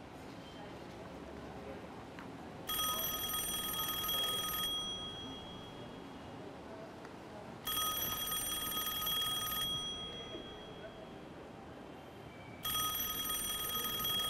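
Yellow rotary desk telephone ringing: three rings of about two seconds each, each a fast high trill, with pauses of about three seconds between them.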